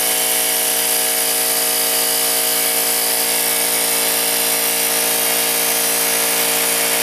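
Central Pneumatic vertical air compressor running steadily, pumping up its tank, its motor on a newly fitted run capacitor. An even, unchanging hum and whir with a hiss over it.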